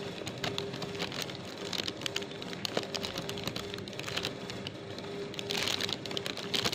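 Plastic bag crinkling under the fingers, with small clicks as tweezer tips work into a nylon zip tie's locking head to release it. A longer, louder crinkle comes about five and a half seconds in.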